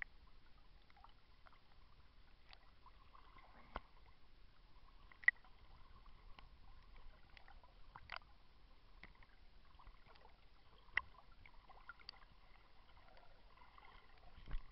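Swimming-pool water splashing and lapping as an arm sweeps through it at the surface. Many small drip-like clicks, with a few louder plops.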